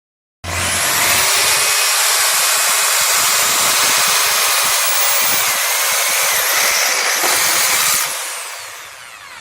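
Electric power drill running: the motor spins up with a rising whine just after the start, runs steadily for about seven seconds with a couple of brief dips in pitch, then winds down and fades near the end.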